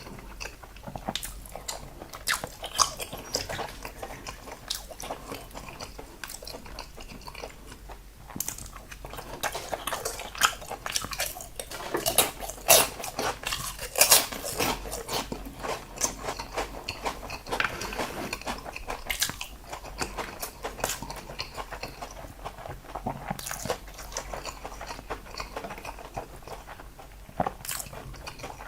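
A person eating salted seafood close to the microphone: repeated bites and chewing with sharp, wet clicks, busiest and loudest around the middle.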